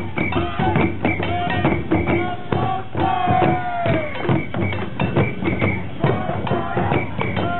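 Oeshiki festival band music: hand-held fan drums (uchiwa-daiko) and small gongs beaten in a fast, busy rhythm, with short held pitched notes over them and one longer note falling in pitch about three seconds in.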